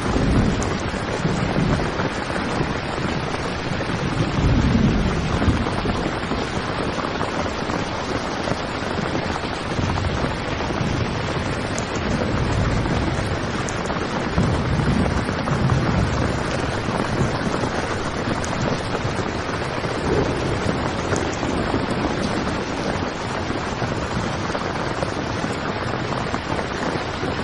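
Heavy rain drumming steadily on a tent, with deep low rumbles swelling up now and then.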